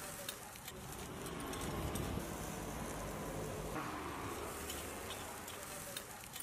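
Marinated meat skewers sizzling over a charcoal grill, with scattered crackles and spits from the coals over a steady low rumble.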